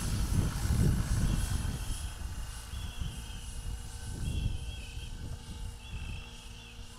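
Gusty wind rumbling on the microphone, strongest in the first two seconds and then easing. Short, high, warbling chirps come back about four times.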